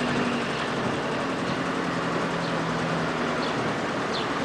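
Vehicle engine and road noise from a car driving slowly, a steady hum under an even rush. From about a second and a half in, short high chirps falling in pitch come about once a second.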